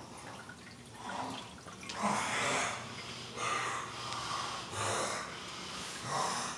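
A man snoring loudly in his sleep: a run of about five harsh, rasping breaths roughly a second apart, some with a low rumble. The snoring is hideous enough to sound like choking.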